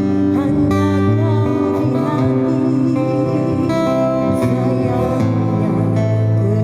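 Busker band playing a song live, acoustic guitar to the fore, its held chords changing every second or so.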